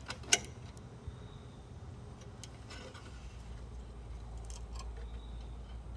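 Light metal clicks and knocks of a carburetor being handled and fitted back onto a Briggs & Stratton Quantum mower engine, with one sharper click just after the start. A steady low rumble runs underneath.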